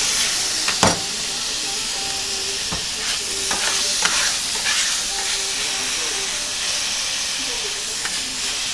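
Cube steak and garlic sizzling on a hot steel flat-top griddle, with a steady hiss. A metal spatula scrapes and clicks against the griddle surface as the food is turned, with a sharp clack about a second in and a few more clicks midway.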